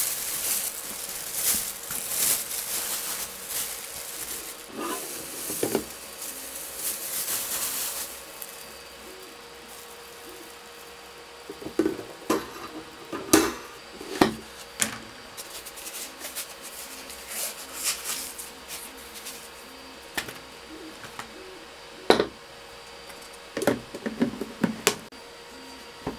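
A thin plastic bag crinkles and rustles for the first several seconds as it is pulled off the wash container of an Elegoo Mercury Plus wash station. Then come scattered knocks and clicks as the hard plastic container and its snap-on lid are handled.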